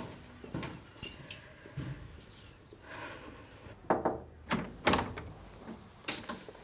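Scattered small knocks and a ringing clink, then a door latch and the door being opened near the end.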